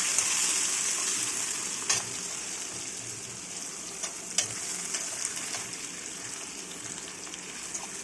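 Chopped onions sizzling in hot oil in a kadai. The hiss is loudest at first and slowly dies down, with a few sharp clicks of stirring against the pan.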